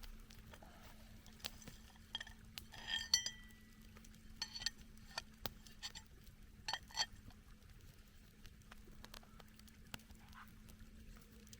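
Camp cookware and utensils clinking and knocking against each other: scattered light knocks, with a few louder metallic clinks that ring briefly, about three seconds in and again near seven seconds.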